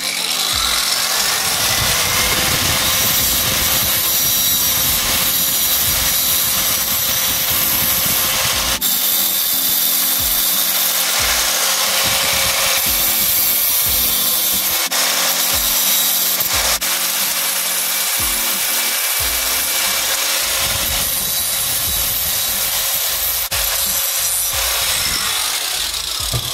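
A small hobby power tool runs with a harsh rasping cutting noise. Its motor spins up over the first couple of seconds, holds steady, and winds down near the end.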